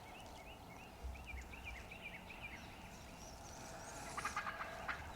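Osceola wild turkey gobbler gobbling once, a quick rattling call about four seconds in. Before it comes a run of short, high call notes repeated several times a second.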